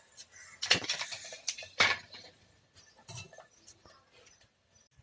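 Metal pots, plates and utensils clattering as they are handled, with two loud clanks about a second apart and a few lighter knocks after.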